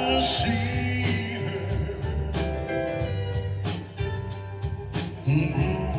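Live band playing a slow country ballad, with a male singer and drums keeping a steady beat.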